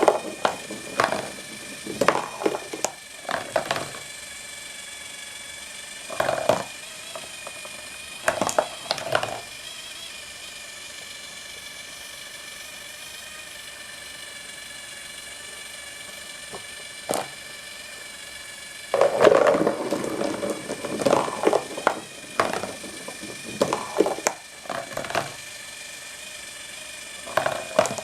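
Cardboard marble run machine running: a small electric motor hums steadily as it slowly turns a heavy cardboard disc, while glass marbles clatter and rattle along the cardboard tracks in bursts, busiest in the first few seconds, briefly around six and nine seconds in, again for several seconds past the middle, and near the end.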